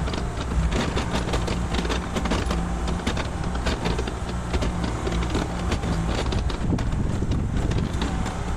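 Mini excavator's diesel engine running steadily while the bucket scrapes and digs at the dirt, with frequent short knocks and clatter.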